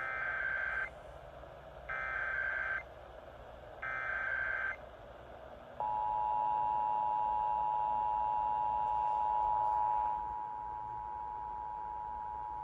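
Emergency Alert System header: three one-second bursts of screeching SAME data tones about a second apart, then the steady two-tone EAS attention signal starting about six seconds in and held, a little quieter near ten seconds. It marks the start of an EAS test message.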